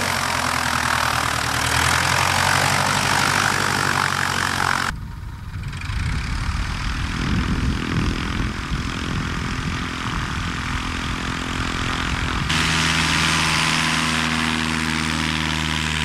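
Piper Super Cub light aircraft's piston engine and propeller running on the ground, steady and loud. The sound cuts abruptly about five seconds in and again near twelve and a half seconds, changing character each time.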